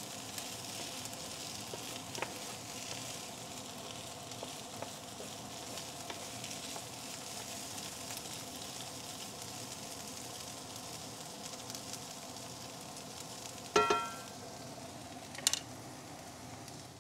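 Diced potatoes sizzling and crackling in bacon fat in a cast iron skillet, with a wooden spatula scraping and stirring them. Near the end, a loud ringing knock, then a sharp click.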